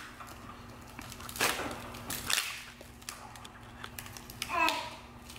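Short sniffs and light handling clicks as a small tin of grooming product is held to the nose and smelled, then a brief vocal sound near the end.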